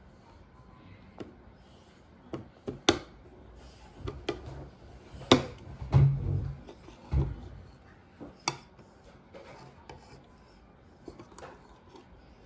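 Eating at the table: scattered clicks and knocks of utensils against dishes, with a few heavier low thumps about six and seven seconds in.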